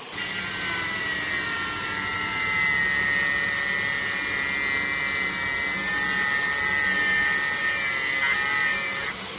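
High-speed electric power tool running with a steady, high whine that cuts off suddenly near the end.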